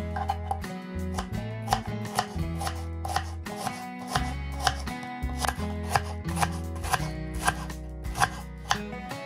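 Music with a steady beat: sharp percussive hits about every three-quarters of a second over held bass notes that change pitch every second or so.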